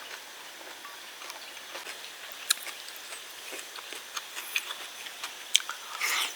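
A person eating: scattered sharp clicks and crunches of chewing, with a short, louder noisy sound just before the end.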